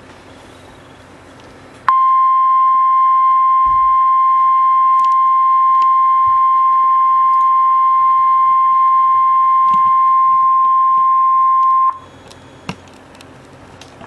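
NOAA Weather Radio warning alarm tone: one steady 1050 Hz beep that starts sharply about two seconds in, holds for about ten seconds and cuts off abruptly. It is the signal that a warning message follows, here a severe thunderstorm warning.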